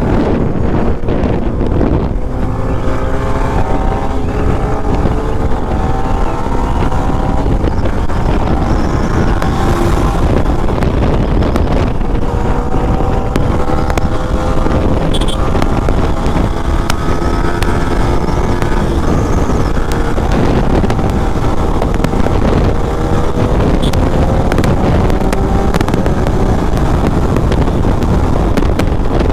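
Yamaha sport motorcycle's engine running at road speed, its pitch climbing slowly and dropping back several times, with steady wind rush on the microphone.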